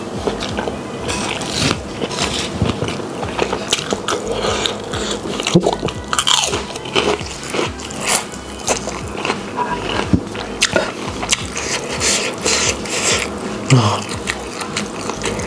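Close-up chewing and biting of food by hand, with many short crunchy clicks.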